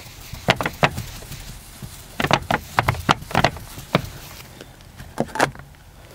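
Whiteboard eraser being rubbed across a whiteboard to wipe off a drawing: a run of short, sharp wiping strokes in uneven clusters.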